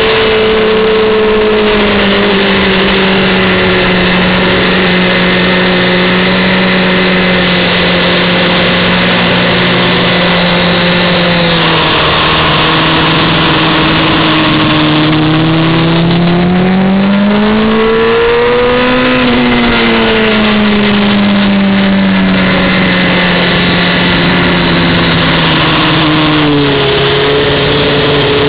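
Honda CBR600F4i's inline-four engine heard from on board at speed, with wind noise over the microphone. The engine note sags slowly, climbs to a peak about two-thirds of the way through, falls away again, then steps down sharply near the end.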